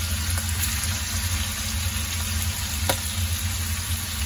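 Chicken pieces sizzling in hot oil and garlic in a frying pan, as a steady hiss over a constant low hum, with one light click about three seconds in.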